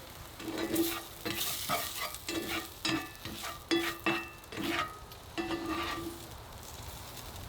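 Chorizo frying in a pan, stirred with a utensil in about a dozen quick scraping strokes that make the pan ring; the stirring stops about a second before the end.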